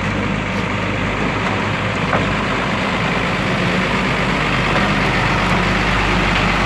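Cargo truck's diesel engine running steadily at low revs as the truck passes close by.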